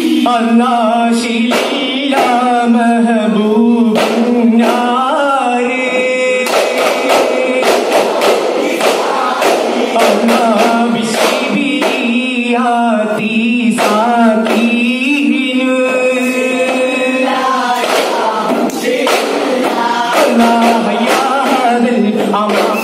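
Duff Muttu performance: young male voices singing a chanted song in unison, behind a lead singer, with frequent sharp strikes of daf frame drums beaten by the troupe.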